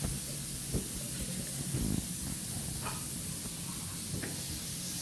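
Steady hiss over a low hum, with a few faint, short clicks scattered through it.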